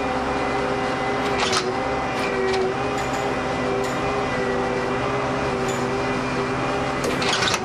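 Harsco Rail new track construction machine working: a steady mechanical drone with several held tones that waver slightly, broken by a few short sharp clicks.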